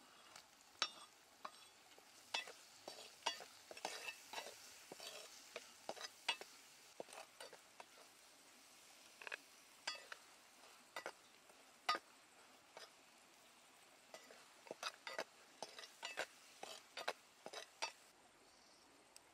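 Spatula stirring chilies, tomatoes and garlic frying in oil in a clay pot, with irregular clinks and knocks as it strikes the pot, over a faint sizzle. The knocking pauses briefly a few times.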